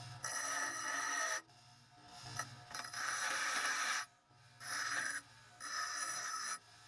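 Metal being worked with an abrasive in four strokes, each about a second long, with short pauses between them.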